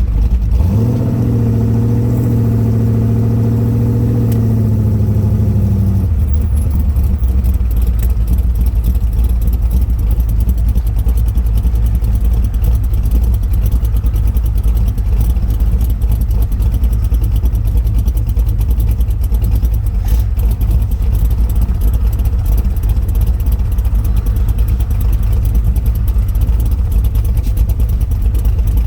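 406 small-block Chevy V8 running through side pipes with Cherry Bomb muffler inserts while driving: the engine note climbs about half a second in and holds for several seconds, then drops to a low steady drone for most of the stretch, climbing again at the very end.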